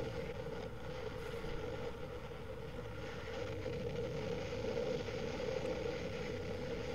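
Hurricane Irma's winds blowing steadily over a camera microphone, a continuous windy rush with a steady hum running through it.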